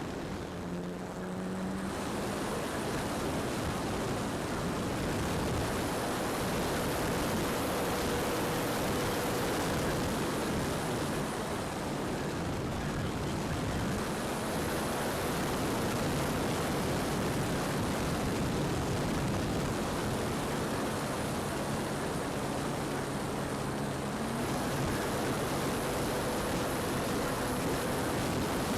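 Steady wind noise buffeting the microphone, with the faint hum of an aircraft's propeller under it, its pitch shifting now and then.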